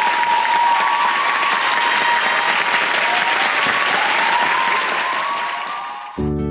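Theatre audience applauding, a dense steady clatter of many hands that eases off slightly near the end. About six seconds in it cuts abruptly to acoustic guitar music.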